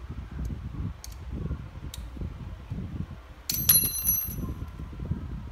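Handling noise of metal parts and tools being moved. About three and a half seconds in, a small metal hand tool clinks against metal with a short bell-like ring.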